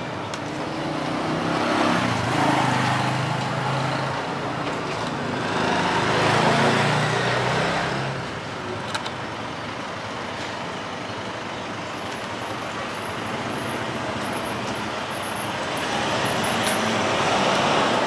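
Road traffic going by: vehicles pass with a rising and falling rush and engine hum, twice in the first several seconds, then a steadier rumble that swells again near the end.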